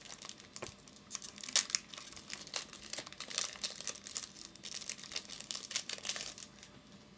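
Plastic wrapper of a trading-card pack being torn open and crinkled by hand: a run of small, irregular crackles.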